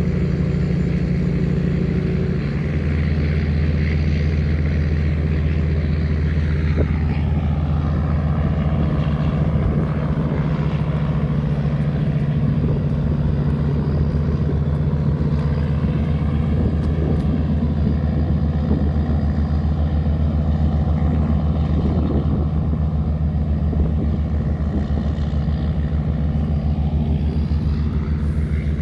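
Tugboat engine running steadily under load while towing barges, a continuous deep drone.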